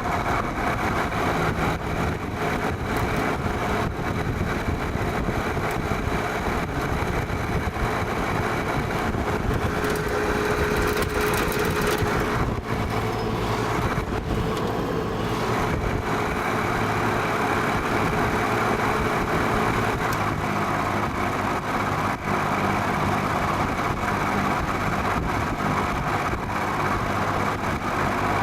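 Vintage Penncrest metal box fan running steadily, blade air noise mixed with a fast rattle from the motor's worn bearings, which the owner puts down to a bad rear thrust washer. The bearings have just been oiled, and it is still rattly.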